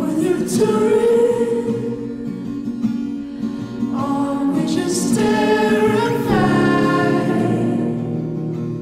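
Background song with a sung vocal line holding long notes over instrumental accompaniment.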